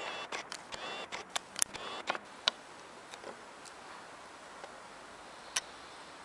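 A quick run of small, sharp clicks and ticks over the first two and a half seconds, then a single click near the end, over faint steady room hiss.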